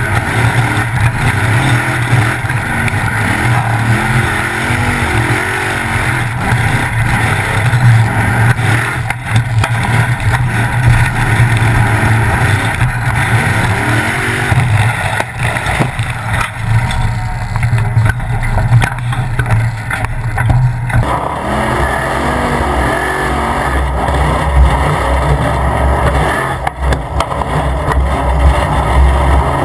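Formula Offroad buggy's engine running hard under load and revving up and down as it climbs, heard through a camera mounted on the car. About two-thirds of the way through, the engine note drops lower and heavier.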